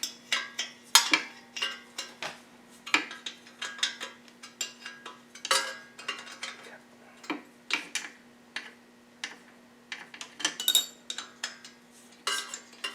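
Metal hand tools and parts clinking and clicking in irregular taps, with a faint steady hum underneath.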